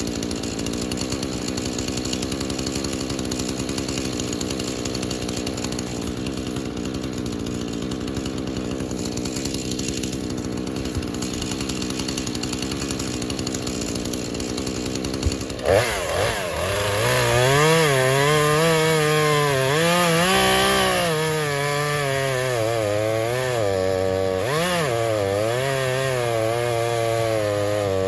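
Husqvarna two-stroke chainsaw running steadily, then opening up louder about halfway through, its pitch dipping and recovering again and again as it cuts through wood.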